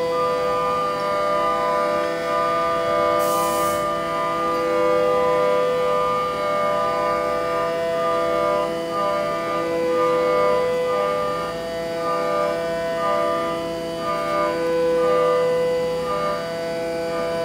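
Background music of long held notes layered over one another, with a softly pulsing higher note and a brief hiss about three seconds in.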